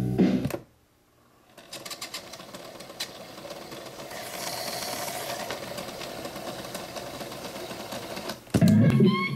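Norelco 2500 cassette deck's tape transport: the music cuts off as the lever is moved, and after a moment the tape winds at speed with a steady mechanical whir and scattered light clicks for about seven seconds. Near the end the deck is put back into play and guitar music comes in again.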